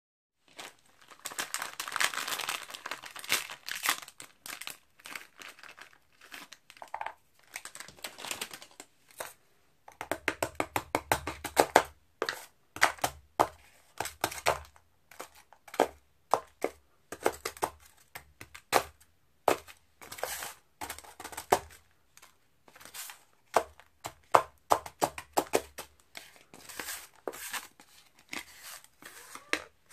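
Crinkling for the first few seconds, then a plastic spatula repeatedly chopping and tapping Oreo cookies on the metal plate of an ice pan, crushing them into crumbs with sharp taps and scrapes, several a second.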